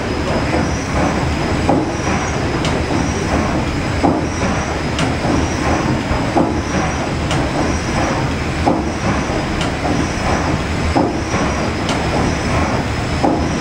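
The 1946 Rankin & Blackmore triple-expansion steam engine of a paddle steamer running under way: a steady mechanical din with a regular knock a little more often than once a second as the cranks turn.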